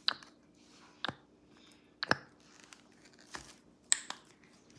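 A plastic squeeze bottle of pouring paint and a plastic cup being handled: about half a dozen short, sharp clicks and crinkles, roughly a second apart.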